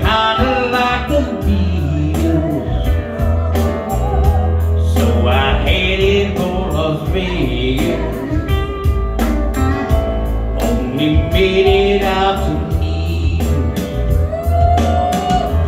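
A man singing live into a microphone through a PA, over amplified backing music with a heavy bass and a steady beat.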